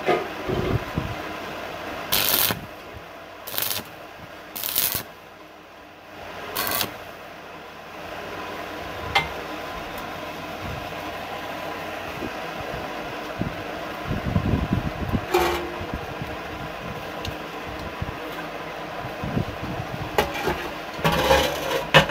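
Stick (arc) welder laying short tack welds on steel: four brief bursts of welding in the first seven seconds. Later come knocks and clatter of steel parts being handled, loudest near the end.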